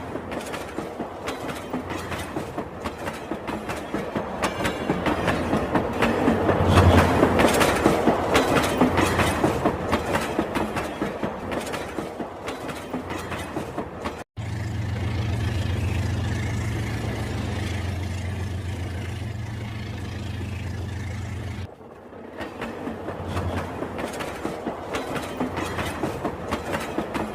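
Rail King battery-powered toy train running on its track, its wheels clicking in a steady rhythm over the track joints, growing louder as it comes past and fading away. About halfway through the clicking cuts off into a steady low hum for several seconds, then the clicking comes back.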